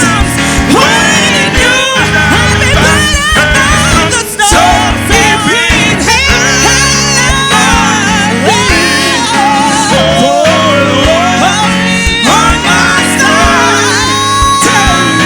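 Gospel worship music: a singer sings sustained, wavering melodic lines over instrumental accompaniment.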